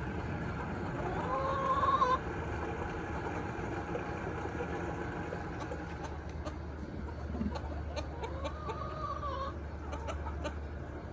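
Chickens calling, with two drawn-out calls of about a second each, one near two seconds in and one near nine seconds in, plus scattered small clicks, over a steady low rumble.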